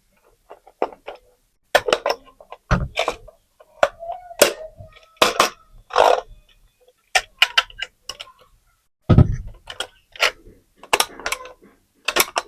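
Marbles clacking and rattling down a wooden HABA Slope marble run: a quick, irregular run of sharp clicks and knocks, some ringing briefly. Two heavier thuds come about three seconds in and again about nine seconds in.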